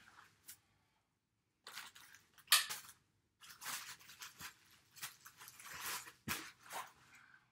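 Plastic shopping bags rustling and crinkling as items are rummaged through, with one sharp, loud crinkle about two and a half seconds in.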